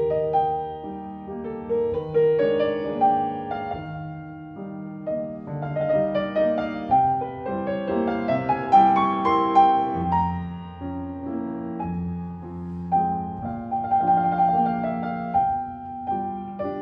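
Background instrumental music: a gentle tune of overlapping notes, some of them held.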